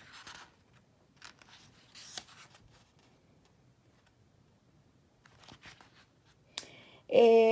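Pages of a paperback book being turned by hand: a few soft paper rustles spread out, with a small sharp tick near the end.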